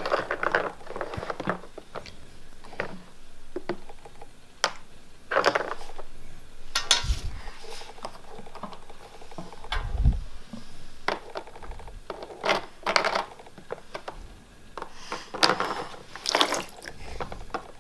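Water splashing and sloshing with plastic toy pieces clicking and clattering, in irregular bursts with a few dull thuds.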